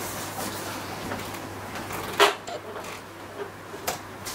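Cardboard box flaps and packing being handled: low rustling of cardboard, with a sharp knock about two seconds in and a smaller one near the end.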